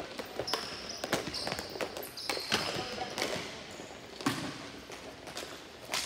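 Ball hockey play: sharp irregular clacks of sticks striking the ball and the playing surface, with a few brief high squeaks in the first couple of seconds.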